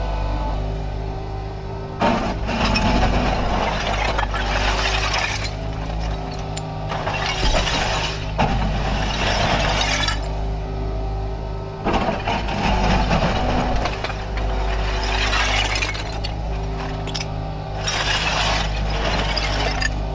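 Kubota KX61-3 mini excavator's diesel engine running steadily, with repeated noisy surges of a few seconds each as the machine works.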